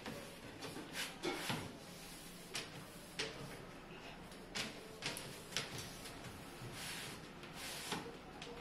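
About a dozen light clicks and knocks at irregular intervals: hands pressing and handling a plastic edge strip taped along a kitchen counter's edge.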